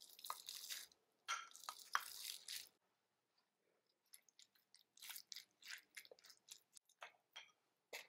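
Boiled eggs being mashed with a metal potato masher in a glass bowl: soft squishing and scraping in two quick runs of strokes. From about four seconds in, fainter, separate squishes as the mashed egg is stirred into mayonnaise with a wooden spoon.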